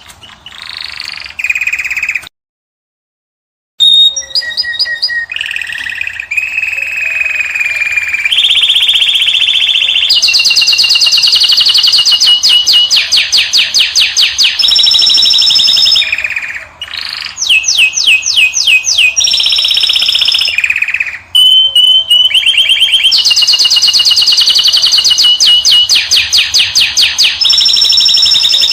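Caged songbird singing loudly in long phrases of rapid trills and fast repeated chirping notes, with the sound cutting out completely for about a second and a half near the start.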